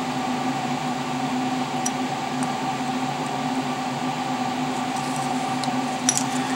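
Steady hum of running shop machinery, an even noise with a few constant tones, as the mill waits idle between cuts. A few faint clicks come and go.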